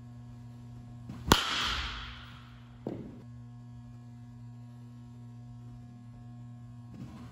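A bat striking a pitched ball about a second in, a sharp crack with a brief ringing tail, followed about a second and a half later by a smaller, duller thud. A steady low electrical hum runs underneath.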